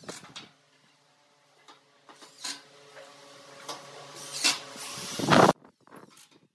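Cordless drill running in a short burst near the end, driving a screw through a plastic crate into pallet wood and stopping abruptly. Before it come a few light knocks and rattles from the plastic crates being handled.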